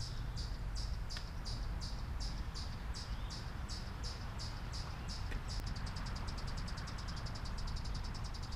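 A songbird calling: short high chirps repeated about three times a second, changing about two-thirds of the way through into a fast, high trill. A steady low rumble runs underneath.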